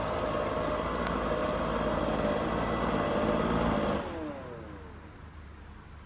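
Yeedi K700 robot vacuum running on carpet: a steady whir of its suction fan and brushes. About four seconds in, it winds down with a falling whine and fades.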